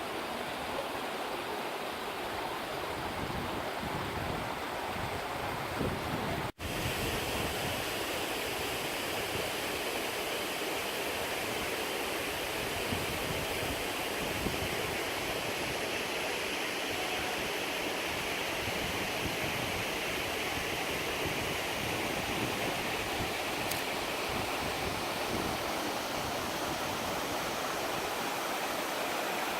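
Mountain stream rushing steadily through a rocky gorge, an even hiss of running water. It drops out for an instant about six and a half seconds in.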